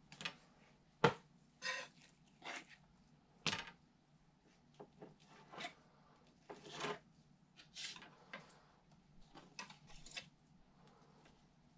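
Fillet knife cutting and scraping a kingfish fillet on a plastic cutting board: a dozen or so short, faint strokes and taps at uneven intervals, with one sharp knock about a second in.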